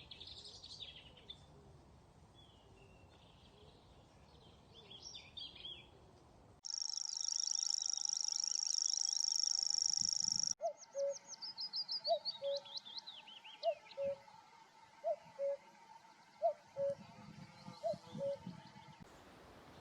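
Small birds calling and singing. First come faint high calls, then a loud, high, fast trill lasting about four seconds, then a run of notes falling in pitch with short low calls repeating beneath, about one pair a second.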